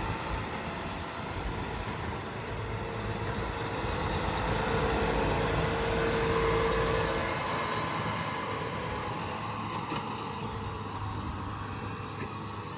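Tractor engine running steadily, growing louder a few seconds in and then easing off.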